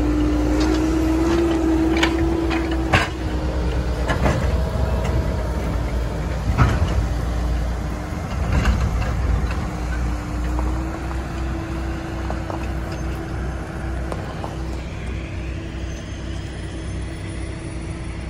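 Slow-moving tie work train rolling past close by: a low rumble with a steady droning hum, and several sharp metallic knocks and clanks in the first nine seconds.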